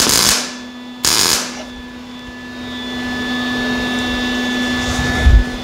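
MIG welder laying two short tack welds on the sheet-steel butt seam of a car fender, each a brief crackling hiss, about a second apart. A steady hum runs underneath, and there is a low thump near the end.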